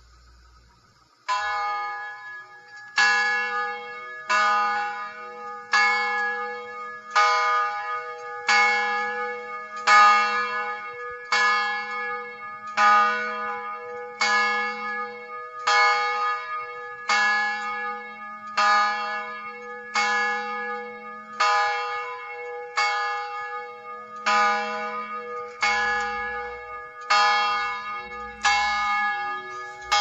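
Large plantation bell rung at a steady, slow pace, about one stroke every second and a half, with each stroke ringing on into the next. The first stroke comes about a second and a half in, after a short stretch of faint hiss. It is heard on an old 1950s tape recording.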